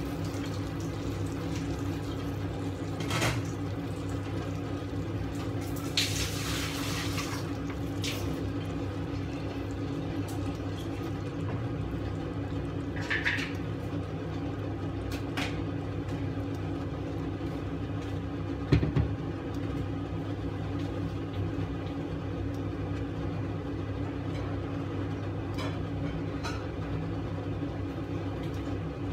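Steady hum with an even hiss, broken by a few light clinks and one sharper knock a little past halfway.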